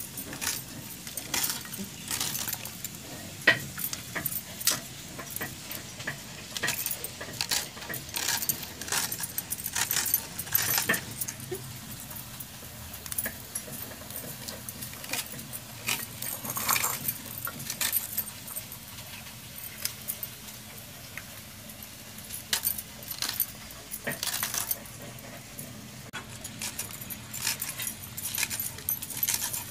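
Green peas being shelled by hand, the pods cracking open and the peas clinking and rattling into a stainless-steel bowl in irregular bursts of small clicks.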